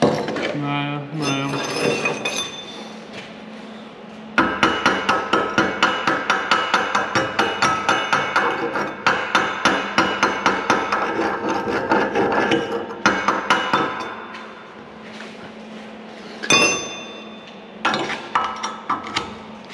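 Chipping hammer knocking slag off stick-electrode weld beads on a steel piece clamped in a bench vise: rapid strikes about four a second with metallic ringing for roughly ten seconds, then a few more strikes near the end. This is the slag being cleared so that the beads can be inspected.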